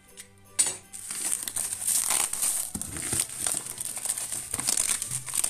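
Crinkling and rustling of a parcel's black plastic wrapping film as a hand grips and pulls at it, after a sharp click about half a second in.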